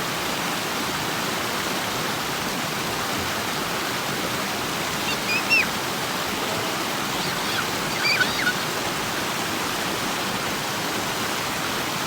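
A river rushing steadily over rocks. A few short high chirps come through about five seconds in and again around eight seconds.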